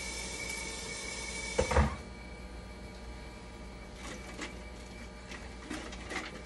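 A dialysis machine running with a steady hum and a thin high whine. There is a knock about two seconds in, after which the hiss drops, then light clicks and taps as parts inside the open machine are handled.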